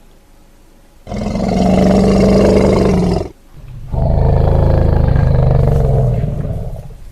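Elephant calling: two loud, harsh calls. The first lasts about two seconds. The second follows half a second later, lower-pitched and about three seconds long.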